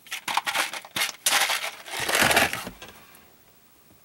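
Small metal single-ear crimp clamps clicking and rattling in a plastic compartment organizer box: a few separate clicks, then a dense rattle from about a second in that lasts about a second and a half.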